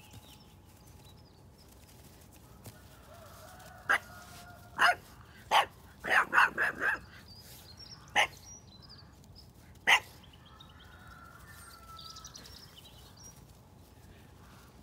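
A puppy barking in play at sheep. About nine short, sharp barks: three about a second apart, then a quick run of four, then two more spaced out.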